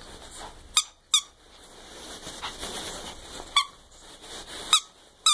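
Squeaker inside a plush turkey-drumstick dog toy squeaking as a puppy bites and chews it: several short, sharp squeaks, a quick pair about a second in, then more spaced out toward the end, with soft rustling between.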